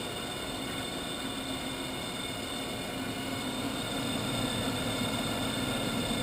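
G-P centerless grinder running, its grinding-wheel motors giving a steady hum with several held whining tones. It gets slightly louder about two-thirds of the way through.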